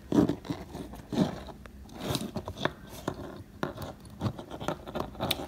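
Handling noise from plugging a sensor cable's plastic plug into the connector sockets of a small circuit board: a string of irregular short clicks and scrapes.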